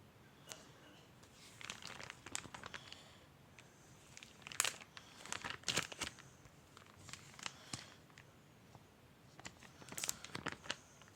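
Crinkling and rustling of something being handled, in several bursts of sharp crackles, loudest about four and a half to six seconds in and again around ten seconds.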